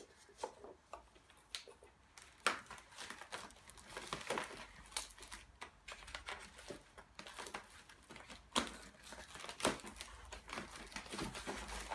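Plastic packaging crinkling, with irregular light clicks and knocks as small plastic lab parts of a chemistry set are unpacked and handled.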